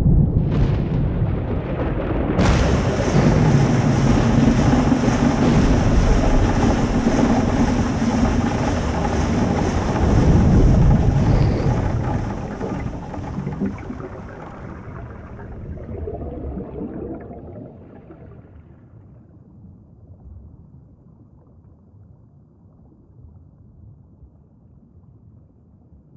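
A deep, noisy rumble that swells in about two seconds in, holds, then fades away over the second half, leaving a faint low drone.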